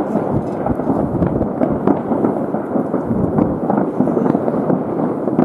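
Many fireworks going off all over the city at once, their bangs and crackles merging into a continuous rumble with no single bang standing out.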